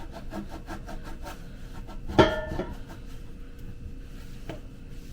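Stovetop being wiped down by hand in quick rubbing strokes. About two seconds in, a hard object is knocked or set down with a sharp clank that rings briefly. A lighter knock comes near the end.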